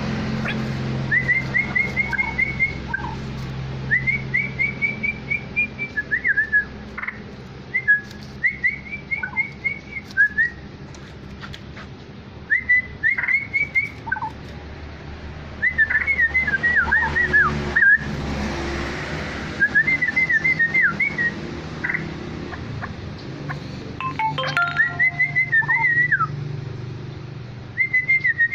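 Straw-headed bulbul (cucak rawa) singing: short phrases of quick, bubbling whistled notes, repeated every couple of seconds. A low steady hum runs underneath.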